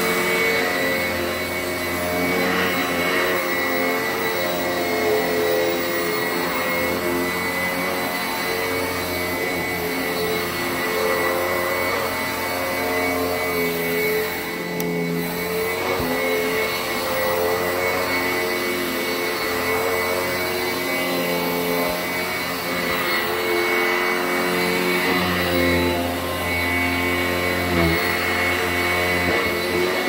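Sanitaire 886E upright commercial bag vacuum running steadily as it is pushed over carpet. Its motor whine holds a steady pitch, dipping briefly about halfway through and again near the end.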